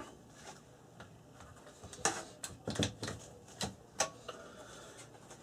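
Light clicks and knocks of hard objects being handled in and around an open metal box, about half a dozen scattered sharp taps, the clearest about two seconds in and about four seconds in.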